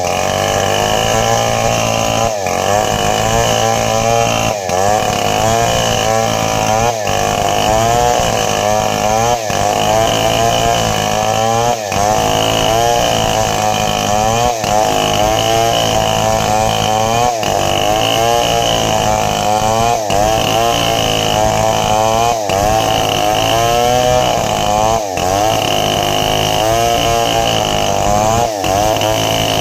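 Two-stroke chainsaw running at high revs, cutting sengon (albizia) wood. The pitch wavers as it works, with a short dip about every two and a half seconds.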